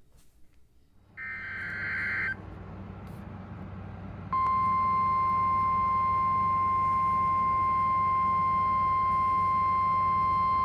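NOAA Weather Radio tornado-warning alert: about a second in, a short burst of warbling SAME data tones, then a low hum and hiss. A little past four seconds in, the loud steady 1050 Hz warning alarm tone starts and holds without a break.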